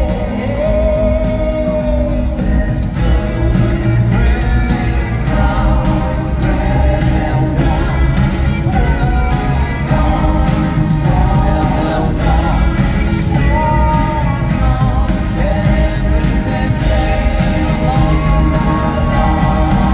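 Pop band playing live in an arena, heard from the audience: lead and backing voices singing a melody over the full band.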